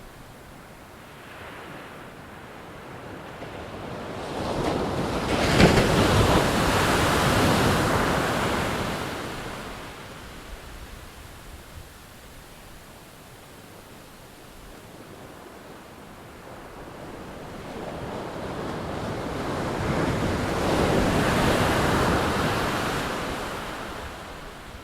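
Ocean surf: two waves break and wash in, each swelling up over a few seconds and fading away, the first about five seconds in and the second near the end, with a low steady hiss between them.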